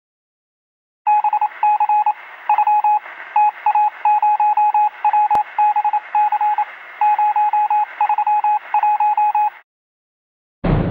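Morse code telegraph sound effect: a single steady beep keyed on and off in short and long pulses over a hiss of radio static, starting about a second in and cutting off near the end. Orchestral music comes in just before the end.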